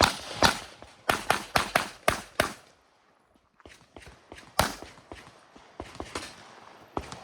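Rapid 9 mm pistol shots from a Glock 26L, about eight in quick succession, many in pairs, over the first two and a half seconds. Fainter sharp clicks follow after a brief lull.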